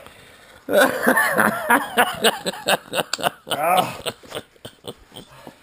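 A person's voice, unclear and with no words that can be made out, from about a second in until about four seconds in, followed by a run of short sharp clicks and knocks.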